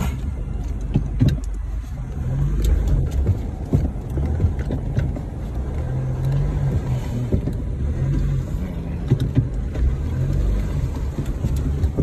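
Four-wheel-drive vehicle's engine running, heard from inside the cab, its low note swelling and easing while the vehicle is stuck in mud. Scattered short knocks sound through it.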